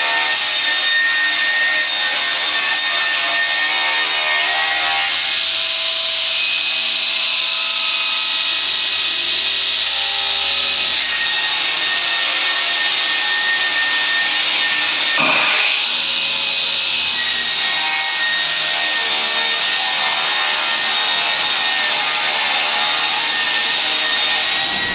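Portable sawmill's circular saw blade cutting lengthwise through a log, a steady high whine over the hiss of the cut, briefly interrupted about fifteen seconds in.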